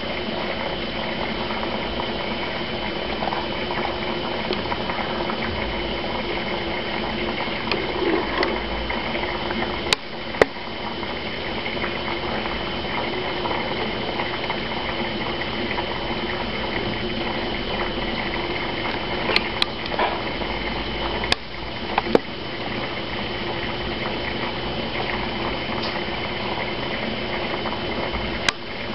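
Small aquarium internal filter running, with water bubbling and churning steadily at the surface. A few sharp clicks are scattered through it.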